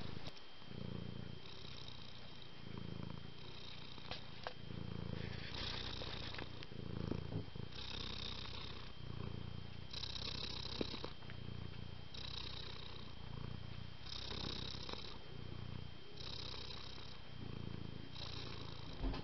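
Domestic cat purring close to the microphone, a continuous low rumble that swells and eases with each breath, about one breath every two seconds.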